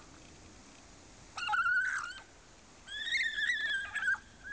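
Vicuña calling: two high, wavering calls, the second longer than the first.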